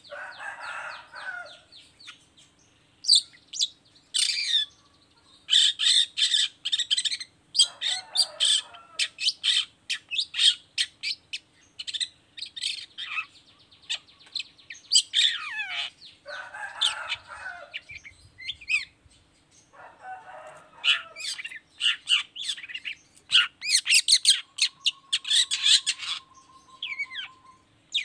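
Long-tailed shrike singing hard: a fast, varied chatter of sharp notes and trills broken by short harsh rasping calls, with a long steady whistle near the end.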